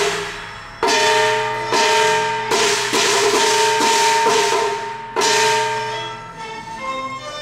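Cantonese opera percussion section playing an interlude of about seven sharp strikes, each ringing on after it is hit, with no singing.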